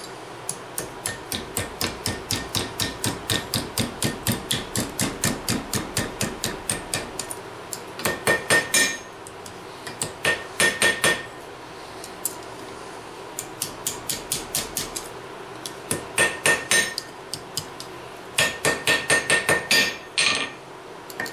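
Blacksmith's hand hammer striking steel on an anvil with a ringing clang: a steady run of blows at about four a second, then several short flurries of quick blows with pauses between them.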